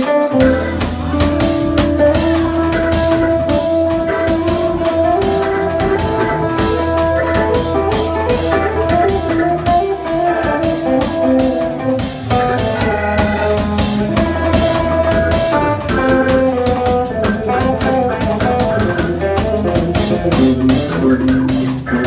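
Live organ quartet playing: electric guitar, saxophone, drum kit and organ, with a steady drum beat under held melodic notes and a low bass line.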